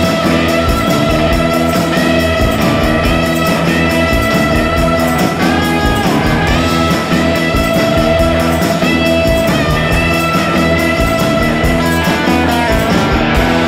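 Guitar-led rock record: an electric guitar melody over a steady drum beat. Near the end the drums stop and the last chord rings on.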